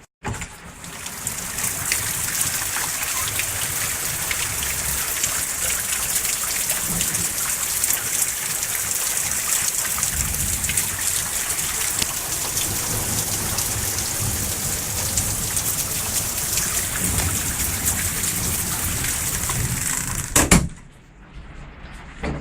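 Heavy rain pouring down in a downpour, a dense, steady hiss that cuts off abruptly near the end.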